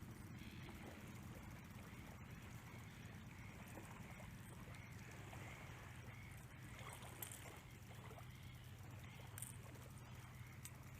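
Quiet shallow-water ambience: faint gentle water movement over a steady low hum, with two soft brief ticks in the second half.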